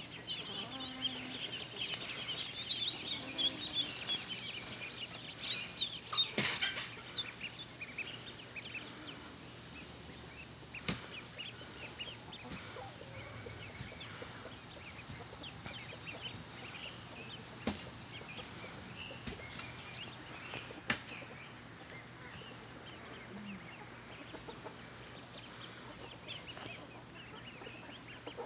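A flock of ducklings peeping: many short, high calls overlapping, busiest in the first several seconds and thinning out after that. A few sharp clicks are scattered through.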